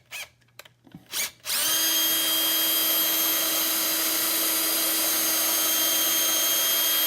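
Electric drill running at a steady speed, boring a screw hole for a knob through a cabinet drawer front. It starts about a second and a half in, after a couple of light clicks, and holds one even pitch.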